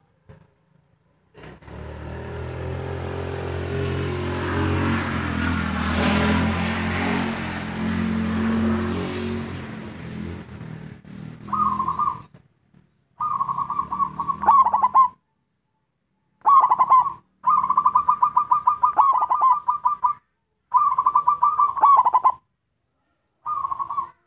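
Zebra dove (perkutut) singing its rapid, stuttering coo in six short rattling phrases over the second half. Before that, a low droning rumble swells and fades over about ten seconds.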